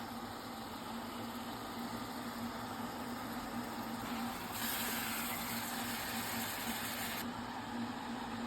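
Steady motor hum with an even hiss. A louder, higher hiss comes in suddenly about four and a half seconds in and cuts off about two and a half seconds later.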